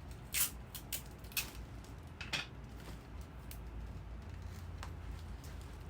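Adhesive tape being pulled off the roll and torn: a few short, sharp rasps in the first two and a half seconds, then fainter clicks of handling.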